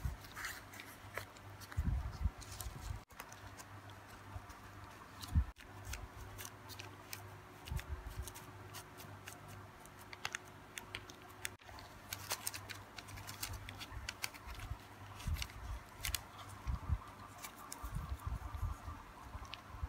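Quiet handling of a clear plastic food tray and a tortilla wrap in gloved hands: scattered clicks and crinkles of thin plastic and soft knocks, with a knife cutting through the wrap partway through.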